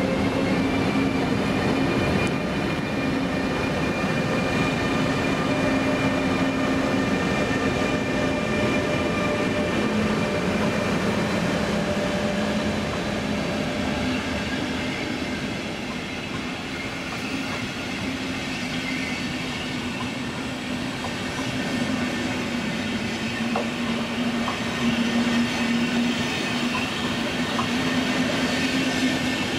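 Locomotive-hauled passenger train rolling past, its coaches' wheels rumbling and clattering on the rails, with a steady whine over it throughout.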